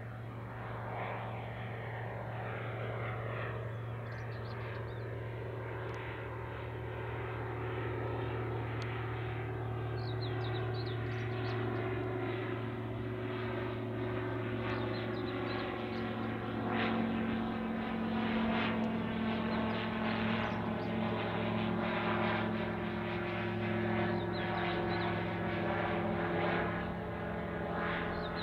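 Single-engine high-wing light aircraft flying past overhead, its propeller engine droning at a steady pitch. The sound swells slightly over the second half as the plane comes nearer.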